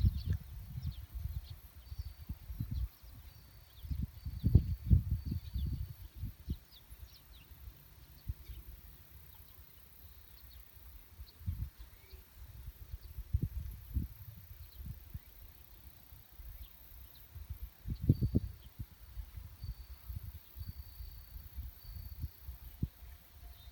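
Wind buffeting the microphone outdoors in uneven gusts of low rumble, strongest about four to six seconds in and again near eighteen seconds. Faint high chirping from insects or birds sits behind it. No train or crossing bell is heard.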